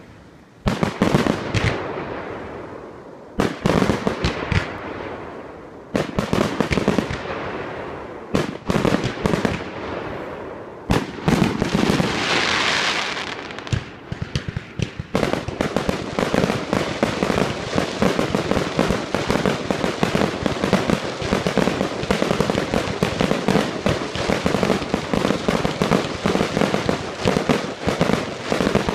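Fireworks going off: single bangs every two to three seconds, each trailing off, with a hiss about twelve seconds in. From about fifteen seconds the bangs and crackling come thick and fast without a break.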